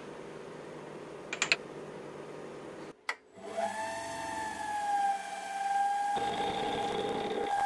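Two light metal clinks as a brass workpiece is handled in a milling vise. Then a milling machine spindle runs up to speed with a steady whine, and about six seconds in a rougher noise joins it as the cutter starts cutting the brass.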